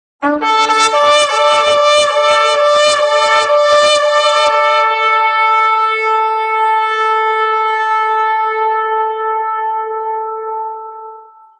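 Shofar (ram's-horn trumpet) blown in one long blast. For the first four seconds or so it stutters in rapid broken pulses with small jumps in pitch, then it settles into a long steady held note that fades away just before the end.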